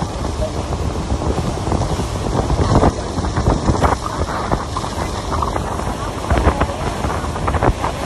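Wind buffeting the microphone on a moving boat, a heavy, gusting rumble, over the rush of water churning in the boat's wake.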